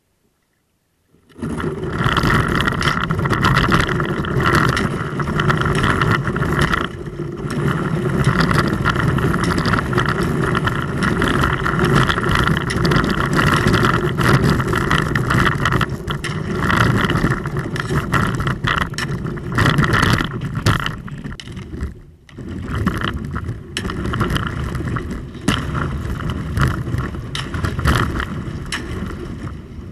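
A kayak's hull pushing through thin ice on a creek: a loud, continuous crackling, cracking and scraping that starts suddenly about a second in and eases briefly twice.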